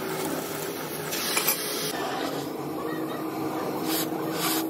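Oxy-fuel cutting torch hissing steadily as its flame and oxygen jet cut through steel plate, with a faint steady hum underneath.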